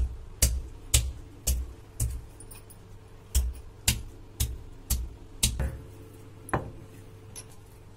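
Round grinding stone of a sil-batta knocking down on skin-on potatoes against the stone slab, crushing them. The sharp knocks come about two a second, with a short pause about two and a half seconds in and a last knock about six and a half seconds in.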